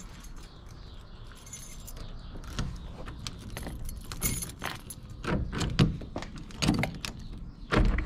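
Keys jangling with irregular clicks and knocks, which come thicker in the second half.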